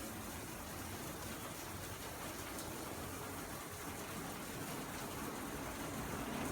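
Heavy rain falling, a steady hiss of water that grows a little louder near the end.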